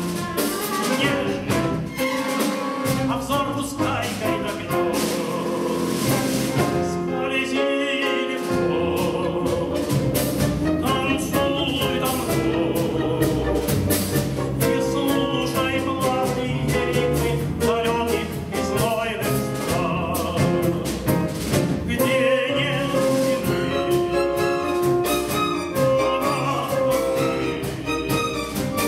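A tenor singing a Russian tango through a microphone, accompanied by a chamber orchestra of strings and piano; the voice comes in phrases with a wide vibrato over the steady orchestral backing.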